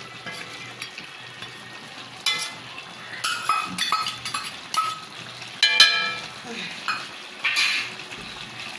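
A metal ladle scraping and clinking irregularly against a metal karahi while stirring turkey curry, over a low steady sizzle from the simmering sauce.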